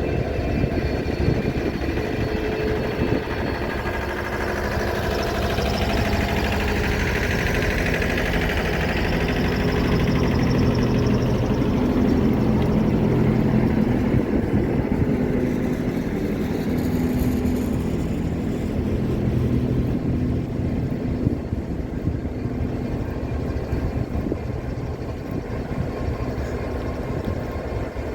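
Class 69 diesel locomotive idling at a standstill, its EMD 710 engine giving a steady low rumble. A broader hiss swells and fades during the first half.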